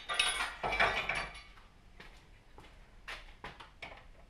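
Metal parts of a core-cutter's hydraulic cutting frame clattering and scraping as they are taken off and handled, loudest in the first second and a half with a brief metallic ring, then a few light knocks and clicks.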